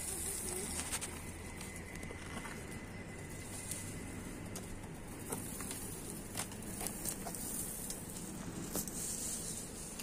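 Pigeons cooing softly near the start, with a few light taps scattered through, while grain is put out for them on paving.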